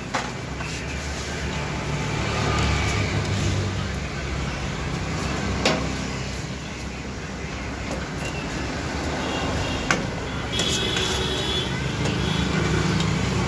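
A knife and tongs clicking sharply a few times against a steel tray as chicken is shaved off a vertical shawarma spit, over a steady low rumble.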